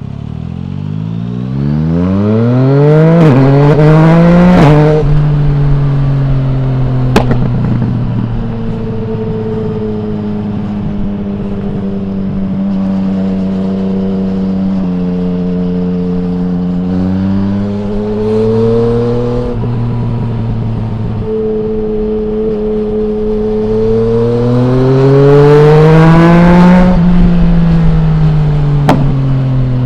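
Yamaha MT-09's three-cylinder engine through an Akrapovic full exhaust with no dB killer, heard from the rider's seat: the revs climb hard for the first few seconds, then it holds a steady cruise with a couple of brief rises in the middle. Near the end it pulls up through the revs again, then the revs fall away, with a few sharp clicks in the exhaust as they drop.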